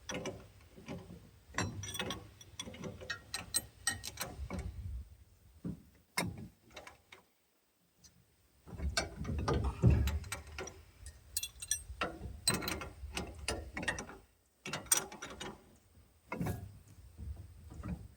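Ratchet wrench clicking in repeated bursts with short pauses, tightening the double jam nuts on a brush hog's shear-pin bolt.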